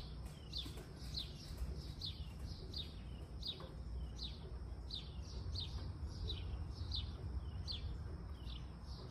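A bird calling over and over, a short high note falling in pitch about twice a second, over a low steady rumble.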